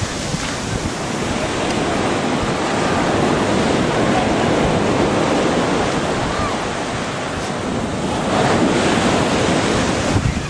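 Surf washing up on a sandy beach: a steady rushing noise, with wind buffeting the microphone.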